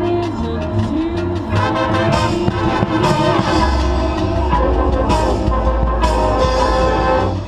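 Marching band brass and percussion playing a field-show passage. The full band comes in louder about a second and a half in, with a deep held bass note through the second half, and it drops back near the end.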